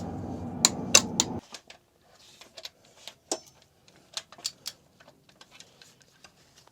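Irregular sharp metallic clicks and ticks of a wrench and socket being worked on the engine's cam belt sprocket and intermediate shaft nuts. The loudest clicks come in the first second and a half, over a steady low hum that stops abruptly about a second and a half in.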